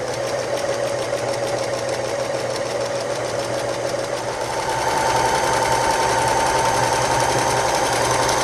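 Electric domestic sewing machine running steadily, stitching a slight zigzag through layered ribbons and fabric. About halfway through it gets louder and its motor hum rises in pitch.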